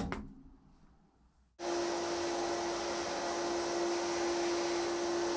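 A click from the switch of a Procarosa sandblasting cabinet. About a second and a half later a steady hiss starts suddenly with a constant hum under it: abrasive blasting inside the cabinet, with its extractor running.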